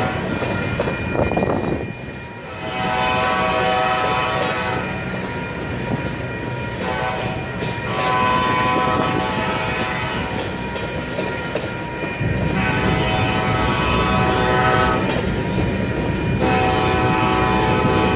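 Slow-moving freight train rumbling and clattering over the rails while the lead locomotive's air horn sounds a series of long blasts with short breaks between them.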